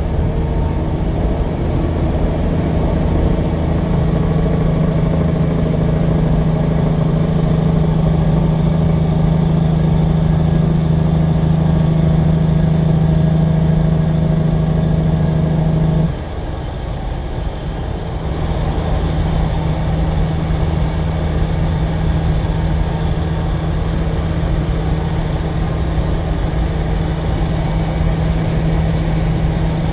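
Peterbilt semi truck pulling a tanker at highway speed, heard from a car driving alongside: a steady diesel drone over tyre and road noise. About halfway through, the drone drops suddenly in level and then builds again.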